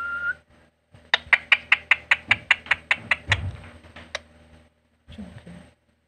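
Ringneck parrot's steady whistle, held on one note, cuts off just after the start. About a second later comes a quick run of about fifteen sharp clicks, about five a second, fading away over three seconds.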